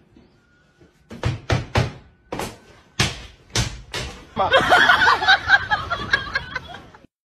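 A run of about eight sharp knocks or thumps, then a couple of seconds of voices that cut off suddenly.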